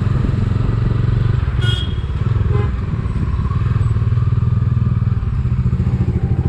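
Motorcycle engine running steadily at low speed, heard from the rider's seat, with no revving.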